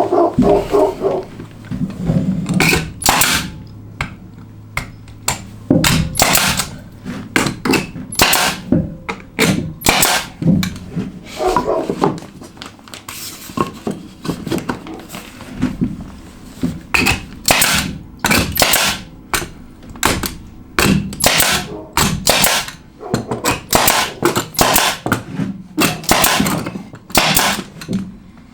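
Construction tool work: many sharp knocks and snaps at uneven spacing, often in quick clusters of two or three.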